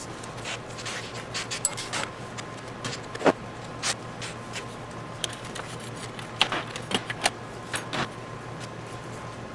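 Metal tools and steel welding rods being handled on a steel workbench and vise: an irregular string of quick clinks and knocks, the sharpest about three seconds in, over a steady low hum.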